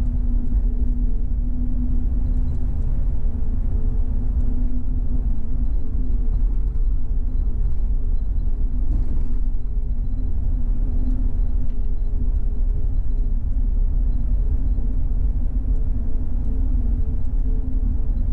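Car driving along, a steady low rumble of road and engine noise heard from inside the cabin.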